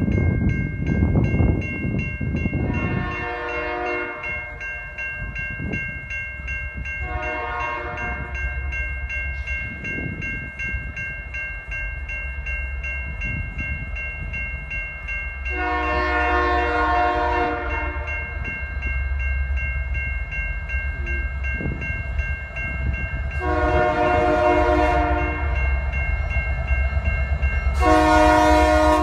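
Norfolk Southern diesel freight locomotive's air horn sounding five blasts as it approaches a grade crossing, over the steady ringing of the crossing bell. The low rumble of the locomotive grows as it nears the crossing toward the end.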